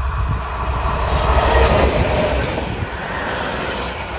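Class 216 diesel-hydraulic locomotive passing close by with its engine running, loudest about a second and a half in. A passenger coach then rolls past with the rumble of wheels on the rails.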